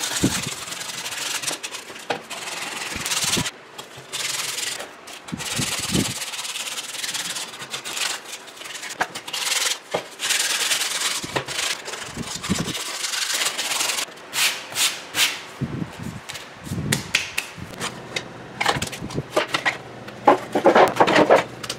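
100-grit sandpaper rubbed by hand along the edges of wooden whirligig parts in quick, irregular strokes, taking the sharp edges off. There are occasional low knocks, and the strokes become shorter and more separate in the last several seconds.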